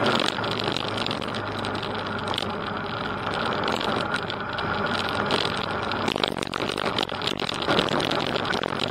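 Motorcycle riding on a gravel track: the engine runs steadily under a constant rush of noise, with scattered knocks and rattles from the rough surface.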